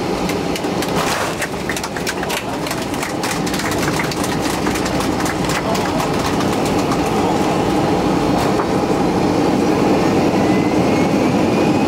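Cabin noise inside a Boeing 737 on its landing run: steady engine and air noise, with a spell of rapid rattling and clattering in the first few seconds. The engine noise then grows louder, with a faint rising whine near the end.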